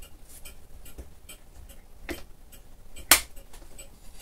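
Light mechanical ticking, a few ticks a second, with one sharp, much louder click about three seconds in.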